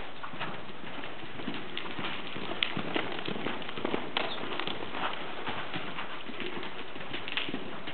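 Hoofbeats of a Standardbred gelding cantering under a rider on sand arena footing, a run of irregular soft thuds.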